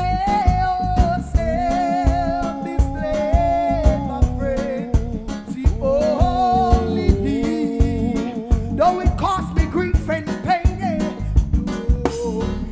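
Live reggae band playing, with the drum kit heard close up: a steady beat of drum and cymbal hits under a lead melody of long held notes that waver in pitch.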